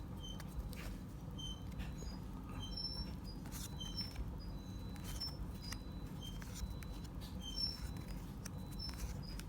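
Short, high chirps or squeaks scattered a few times a second, with faint clicks over a low steady hum.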